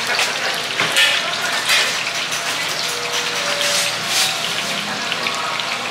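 Hot oil sizzling and crackling steadily in a large wok as battered oyster fritters deep-fry.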